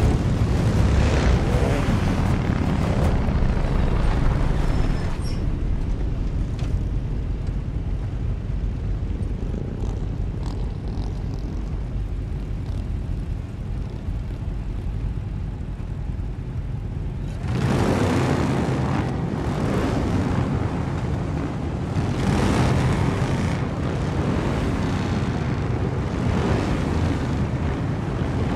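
Massed motorcycle engines of a large biker horde running together in a dense rumble. It eases off through the middle, then rises again about two-thirds in with repeated surges as the engines are revved hard.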